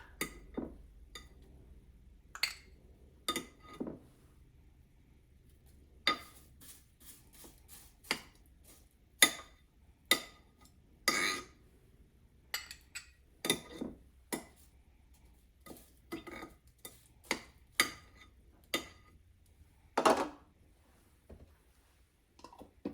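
A kitchen utensil clinking and tapping against a dish in irregular short clinks, some ringing briefly, as butter is added to the rice.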